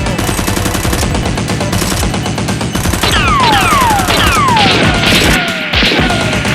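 Rapid automatic gunfire sound effects over background music. From about halfway, several falling whistles cut through the shooting.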